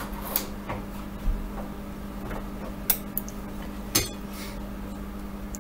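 Scattered small clicks and taps from handling a Raspberry Pi camera module at a workbench as its ribbon cable is taken off, with about four sharper ticks, over a steady low hum.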